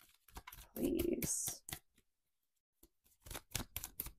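Tarot cards being shuffled by hand: a quick run of light papery clicks in the last second, with a few fainter clicks near the start.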